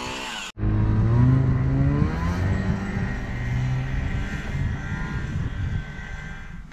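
Ski-Doo Tundra 600 EFI two-stroke snowmobile accelerating away: loud from about half a second in, its engine pitch rising, then slowly fading as it runs off into the distance.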